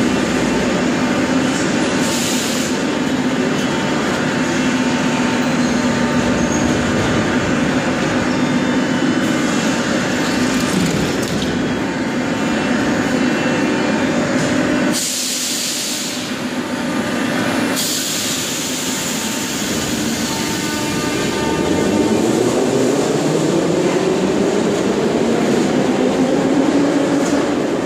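Moscow metro train of the 81-717/714 'Nomernoy' type, its steady machinery hum filling the station platform. In the last several seconds a motor whine rises in pitch as the train pulls out and rolls past.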